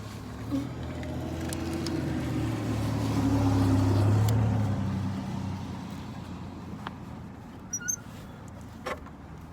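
A motor vehicle passing by, its low engine hum swelling to a peak about four seconds in and fading away, followed by a few light clicks near the end.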